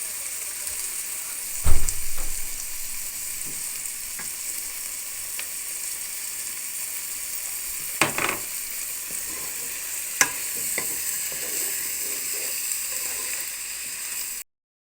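Food frying in a pan, sizzling steadily, with a few sharp knocks, the loudest about two seconds in. It cuts off suddenly just before the end.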